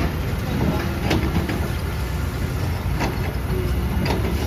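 Diesel engines of an excavator and several dump trucks running together in a steady low rumble, with short knocks about a second and three seconds in.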